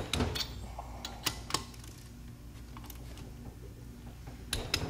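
Sharp metallic clicks from a ratchet-head torque wrench tightening the rocker arm studs on a cylinder head: a few separate clicks, then a quick cluster of clicks near the end.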